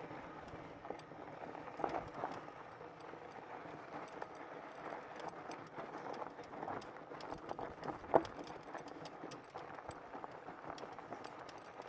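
Fat-tire e-bike rolling over a rough dirt trail: steady tyre noise with scattered clicks and rattles, and a louder knock about 2 seconds in and again about 8 seconds in.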